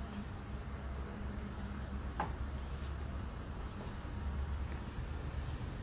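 Crickets chirping steadily at night over a low background rumble, with one short click about two seconds in.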